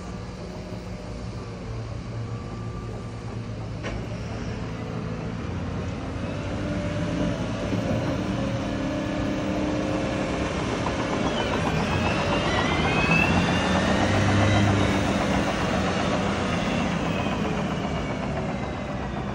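Cat 950M wheel loader's diesel engine and drivetrain running as the loader drives, growing louder as it comes near and easing off slightly near the end. A high whine rises and then falls in pitch around the loudest stretch, about two-thirds of the way in.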